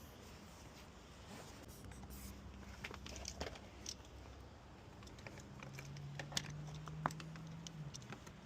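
Faint scraping and light clicks of lockout tools being worked against a car door, over a low steady hum.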